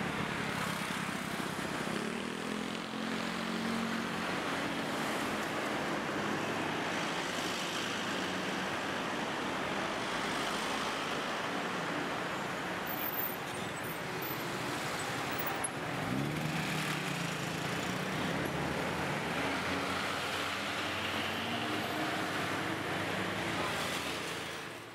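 Street traffic noise: motor vehicles passing on a city road in a steady wash of sound. One vehicle's engine note rises about two-thirds of the way through.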